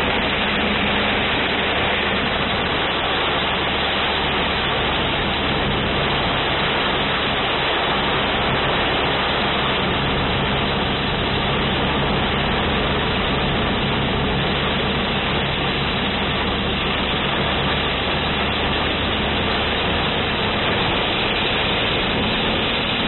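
Torrential rain pouring steadily onto a car, heard from inside the cabin, with the car's engine running as a low steady hum underneath.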